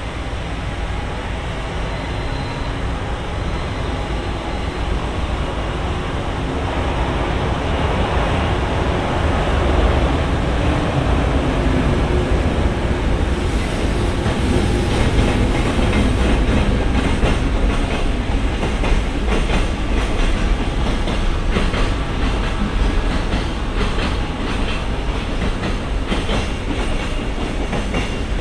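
Freight train hauled by a JR Freight EH500 electric locomotive approaching and passing, its rumble growing louder over the first ten seconds. From about halfway, the container wagons roll by with a steady run of wheel clacks over the rail joints and points.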